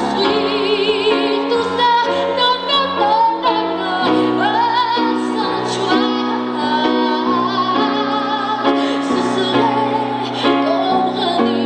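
A woman singing a song into a microphone over instrumental accompaniment, holding some notes with vibrato.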